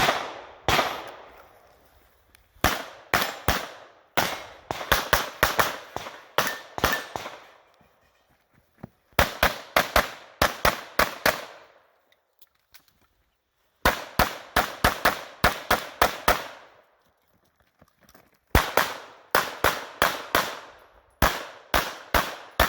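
Pistol fire during a USPSA stage run: quick strings of shots, several a second, broken by pauses of one to two seconds as the shooter moves or reloads. Each shot is a sharp crack with a short echo.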